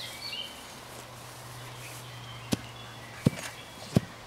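A stick struck hard against the ground three times, about two and a half seconds in and then at intervals of roughly 0.7 s: three short, sharp knocks.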